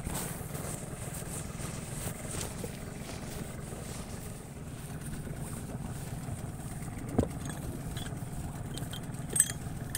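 Small boat's engine running steadily at idle while the grapnel anchor is hauled up by hand, with a single knock about seven seconds in and a sharp click near the end.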